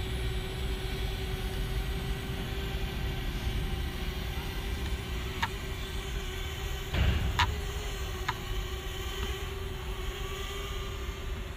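Small camera quadcopter drone flying low nearby, its propellers giving a steady, slightly wavering hum, with wind rumbling on the microphone, a louder gust about seven seconds in, and a few light clicks.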